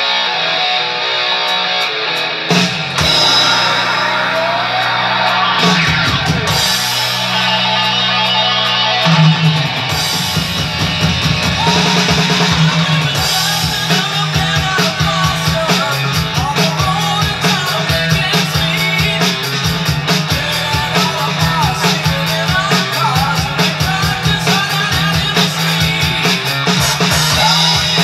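Drumless backing track of a 1970s rock song, led by electric guitars, with an electronic drum kit played along. A few scattered hits and fills come in the first seconds, then a steady rock beat from about ten seconds in.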